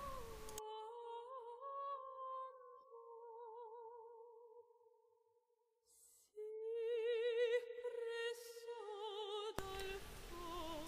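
Quiet background music: a woman's wordless singing voice holding long notes with a wavering vibrato, with a short silence near the middle.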